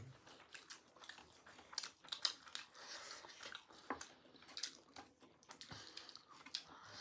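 Chewing and mouth sounds of someone eating noodles, with scattered soft wet clicks and smacks.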